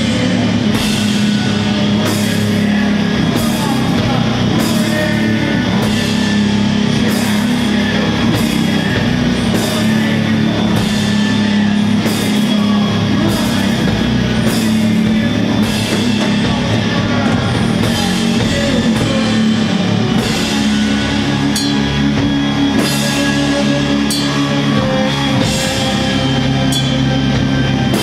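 Doom metal band playing live: sustained low guitar and bass chords over a slow, steady drum beat with regular cymbal hits. The chords shift to a lower note about two-thirds of the way through.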